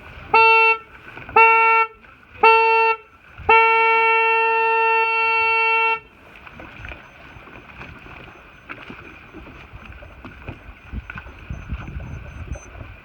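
Sailboat race starting horn: three short blasts about a second apart counting down the final seconds, then one long blast of about two and a half seconds signalling the start. Wind and water noise follow.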